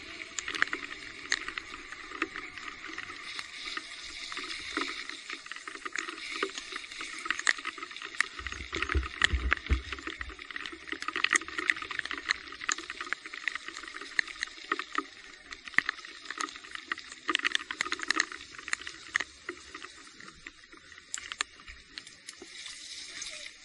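A steady wet hiss of rain and water on the trail, with many scattered sharp clicks and ticks, and a brief low rumble about nine seconds in.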